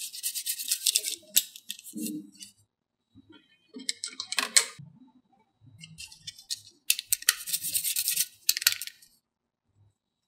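Rapid clicking and rattling from foam balls on wooden sticks being handled, heard three times, the last the longest, with a few faint knocks between.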